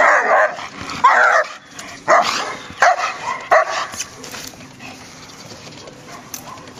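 German shepherd dog barking, five loud barks over about four seconds.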